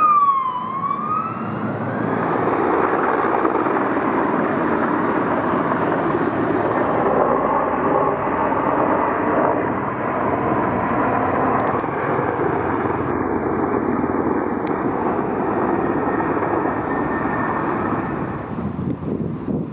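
An emergency vehicle siren's wail falls and rises once and fades in the first two seconds. Then a Sikorsky S-64 Skycrane firefighting helicopter flies over with a steady, loud rotor and engine noise, which eases near the end.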